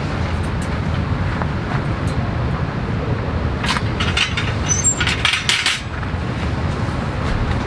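Steady low wind rumble on the microphone, with a cluster of light clicks and clinks about four to six seconds in.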